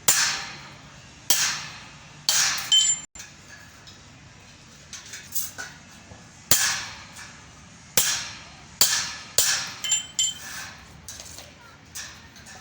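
Hammer striking metal: about a dozen irregular blows, each with a short metallic ring.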